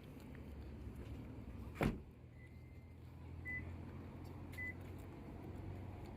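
A steady low hum with a single sharp knock about two seconds in, followed by high electronic beeps: one longer beep, then two short ones about a second apart.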